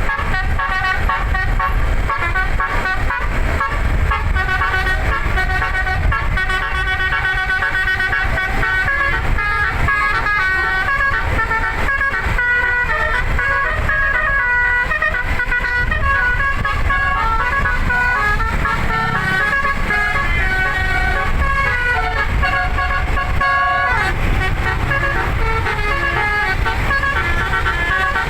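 Telolet basuri 11-note musical air horn playing a fast melody, its notes stepping up and down every fraction of a second over a steady low rumble, breaking off briefly near the end before carrying on.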